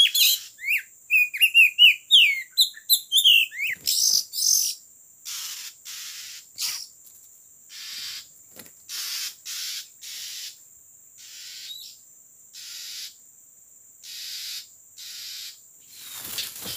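Oriental magpie-robins calling: a quick jumble of whistled chirps, then a run of short harsh rasping calls about once a second.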